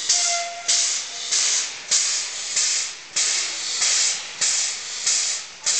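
MÁV 220 (ex-Ia) class steam locomotive chuffing in a steady, even rhythm, about three hissing exhaust beats every two seconds as it works slowly under its own steam.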